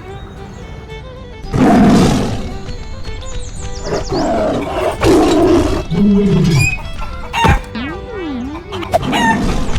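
Background music with added sound effects laid over it: a loud, noisy roar-like burst about one and a half seconds in, then several shorter effects, among them a quick up-and-down sliding tone near the end.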